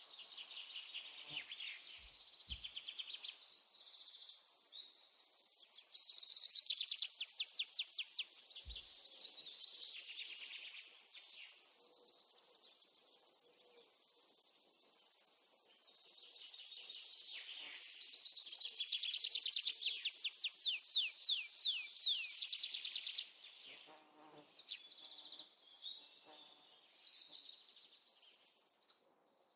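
Jungle ambience: birds calling in fast runs of repeated whistled notes over a steady high insect buzz. The buzz stops about three-quarters of the way through, leaving scattered chirps that fade out near the end.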